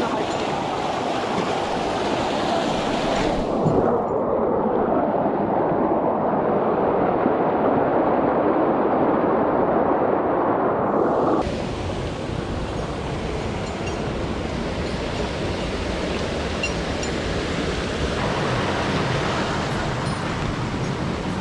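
Steady rushing of a mountain stream and its cascades. From about four seconds in the sound turns duller and a little louder, then changes abruptly back near the middle.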